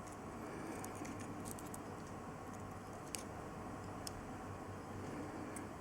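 A few faint small metallic clicks and taps from handling a nickelled watchmaker's movement holder and a watch movement, over a steady low hiss.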